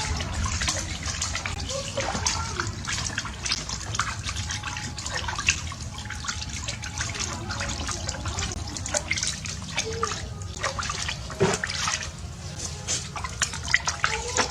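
Bathwater splashing and dripping as a small monkey moves about in a bathtub, in many short splashes.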